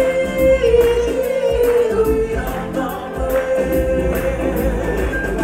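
Choir singing in harmony, with one long high note held and wavering through most of it.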